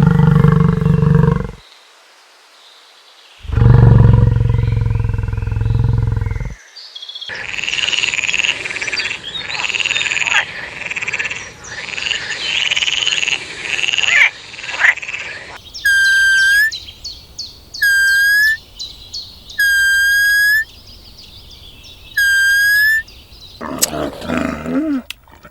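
A string of different animal calls, one after another: two loud, deep calls in the first seven seconds, then a stretch of busy, rapid high-pitched calling, then four evenly spaced higher-pitched calls about two seconds apart, and more short calls near the end.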